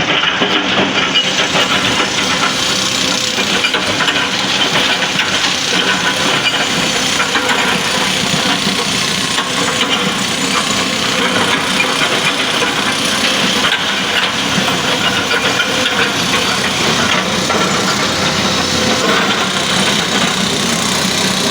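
LiuGong excavator's diesel engine running steadily.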